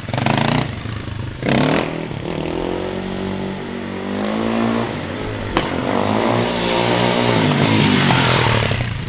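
An engine revving, its pitch climbing and falling twice over several seconds.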